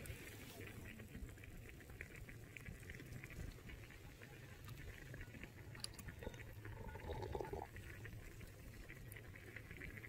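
Wood fire crackling in a small stainless steel fire pit, with scattered sharp pops over a low, steady rumble of burning.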